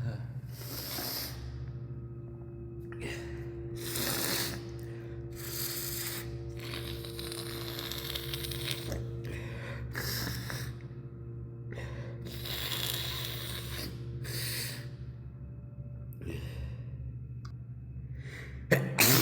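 A person breathing hard and sniffling through a sneezing fit, with a rush of breath every second or two, then a sudden loud sneeze near the end. A steady low hum runs underneath.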